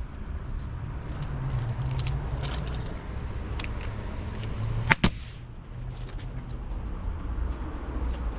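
A steady low hum with scattered light clicks, and two loud sharp knocks in quick succession about five seconds in.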